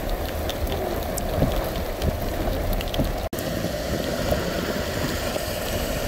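Heavy rain falling, with traffic on the wet road mixed in. The sound cuts out for an instant a little over three seconds in.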